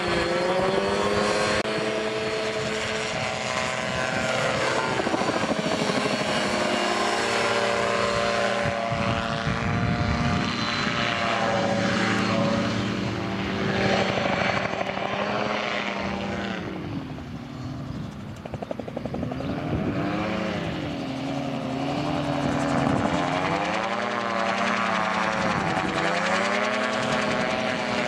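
Engine and pusher propeller of an Aviomania G1sa Genesis Solo single-seat gyroplane in flight. Its pitch slides up and down as it passes and manoeuvres. The sound fades for a couple of seconds past the middle, then comes back strong for a low pass.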